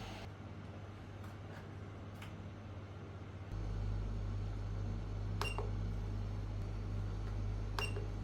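Creality Ender 3 V3 SE 3D printer running: a steady low motor-and-fan hum that gets louder about three and a half seconds in, with two sharp clicks a couple of seconds apart.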